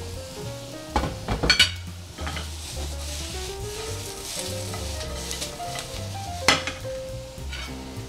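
Sliced peppers and onion sizzling as they sauté in oil in a frying pan over a gas flame. A few sharp metal clatters from the pan and spoon come about a second and a half in, and one more about six and a half seconds in.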